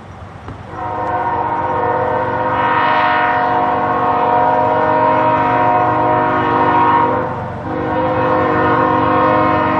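Freight locomotive's multi-chime air horn sounding one long blast of about six seconds, then a second long blast that starts about a second later and is still going at the end. A low diesel engine rumble runs underneath.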